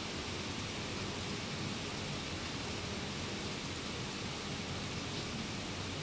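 Steady rainfall, an even hiss with no single drops or other events standing out.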